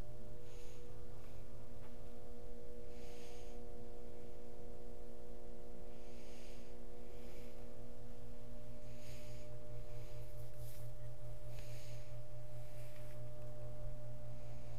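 A steady low electrical or machine hum made of several held tones, with soft hissing rustles every second or so.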